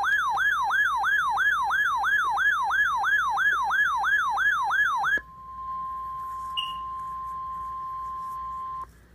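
Emergency alert tones: an electronic alarm sweeping down in pitch about three times a second for about five seconds, then switching to a steady single high tone, the 1050 Hz NOAA Weather Radio warning alarm tone, which stops shortly before the end.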